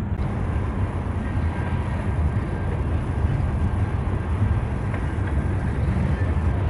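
Freight train running by, a steady low rumble with faint high steady tones over it.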